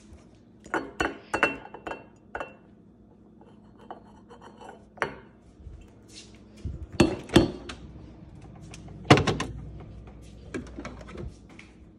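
Glass bottles and kitchen things clinking and knocking as they are handled on a granite counter, a dozen or so separate clicks and knocks, some ringing briefly. About two-thirds of the way in comes a louder knock with a rattle as the refrigerator door is opened.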